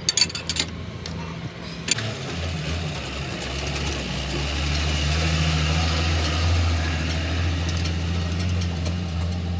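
An engine idling steadily, swelling louder about two seconds in. A few sharp metal clinks near the start come from a wrench working on the truck's wheel-hub nut.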